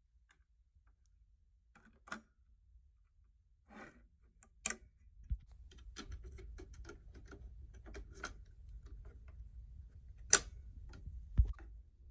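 Scattered sharp clicks and knocks of hard objects being handled, over a low rumble that starts about five seconds in; the loudest click comes about ten seconds in.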